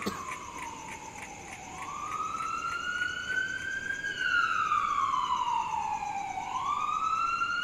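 Ambulance siren wailing, its pitch sliding slowly down and up in cycles of about four seconds.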